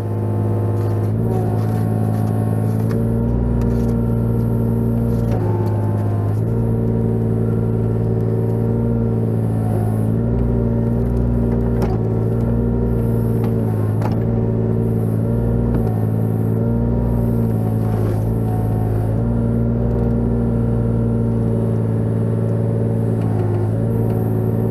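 Kubota KX018 mini excavator's three-cylinder diesel engine running steadily while the bucket digs, its pitch sagging briefly every few seconds as the hydraulics take load, over an uneven low rumble.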